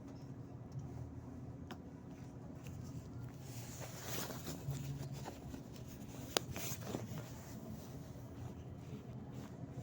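Cabin noise of a Volgabus-5270.G2 compressed-natural-gas city bus under way: a steady low engine and road hum, with rattles and a few sharp clicks in the middle, the sharpest about six seconds in.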